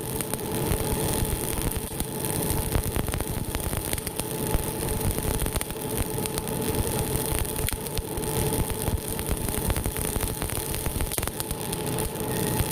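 Two-roll rubber mill running with a steady hum and rumble while silicone is worked between its rolls, with many small crackles and snaps throughout.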